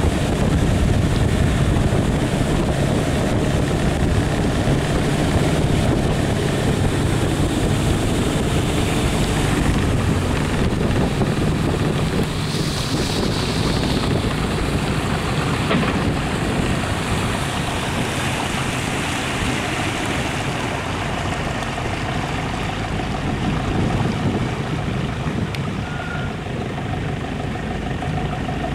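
Motorbike engine driving a vỏ lãi long-tail boat, running steadily at speed, with rushing water and wind on the microphone; the overall sound eases slightly about halfway through.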